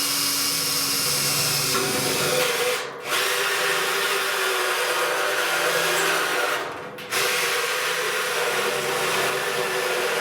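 Cordless drill running at speed, boring holes through the sheet-metal wall of a barrel. It runs in three stretches with two brief stops, about 3 and 7 seconds in.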